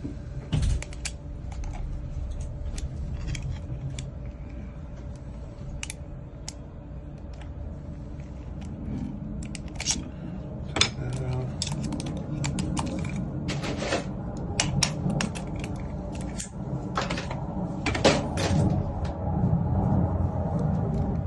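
Small metallic clicks and taps of a padlock cylinder being repinned: pins, springs and tools handled in irregular bursts, over a steady low hum.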